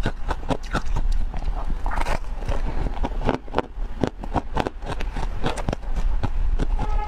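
Close-miked crunching and chewing of frosty chunks of ice: a fast, uneven run of sharp crackling crunches.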